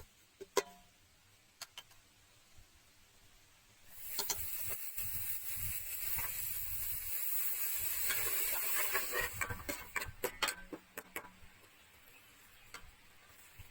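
Food sizzling in a hot pan: a hissing crackle that starts suddenly about four seconds in and dies away after about six seconds. Light clicks and taps come before and after it.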